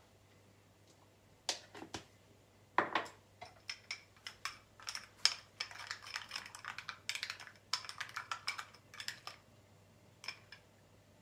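A spoon clicking and scraping against a small glass bowl as sugar is stirred into a thick yogurt-and-banana mixture. A few separate clicks come first, then a quick, irregular run of clicks for several seconds, with a few more near the end.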